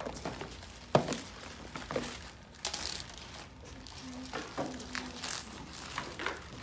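Plastic zip-top bags crinkling and rustling as they are handled, with a sharp knock about a second in.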